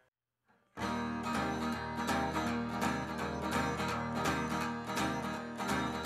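Acoustic guitar with a capo, strummed in a steady rhythm as a blues song starts, coming in suddenly after a short silence about three-quarters of a second in.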